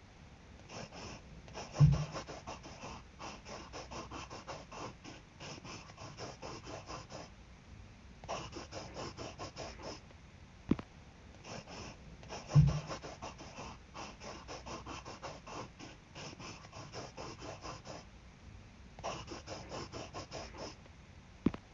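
Rapid scratchy drawing strokes, coming in runs with short pauses between them. A dull low thump comes about two seconds in and again about twelve seconds in, with a sharp click near eleven seconds.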